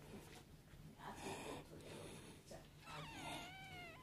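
A newborn baby's snuffling breaths, then a short wavering whimper near the end.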